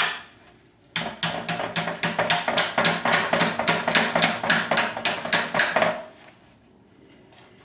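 Ball peen hammer striking 1/8-inch steel bars clamped in a vise, bending them over: a single blow, then a steady run of about four blows a second for some five seconds, and one more blow near the end.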